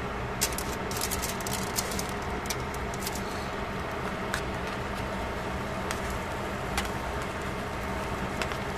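Steady hum and rush of a running fan or motor, with sharp clicks scattered over it. The clicks come mostly in the first three seconds, as metal tongs set a glazed fish fillet onto the foil-lined pan, and a few more follow later.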